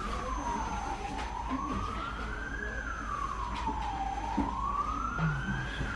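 Emergency vehicle siren wailing, its pitch gliding slowly up and down in about one rise and fall every three seconds, over a low steady hum.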